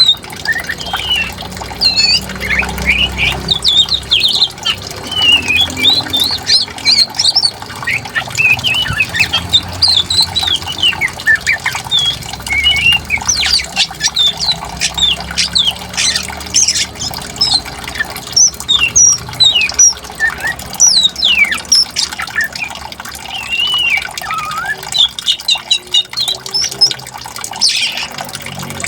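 Songbirds calling nonstop in quick, varied chirps and whistles, over a steady low rush of flowing water.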